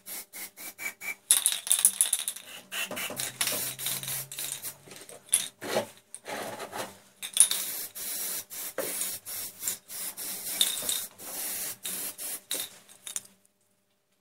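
Aerosol spray-paint can hissing in many quick short bursts, one after another, stopping about a second before the end.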